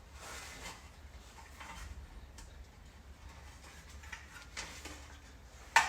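Faint handling sounds of a gasket being fitted onto a transmission pan: light ticks and rustles, with one sharp click near the end.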